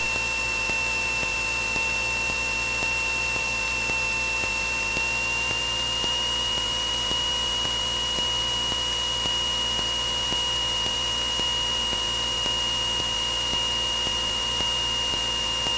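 Steady drone of a Cessna 172N's four-cylinder Lycoming engine and propeller on final approach, heard from inside the cockpit, with a thin high whine that rises slightly in pitch about five seconds in.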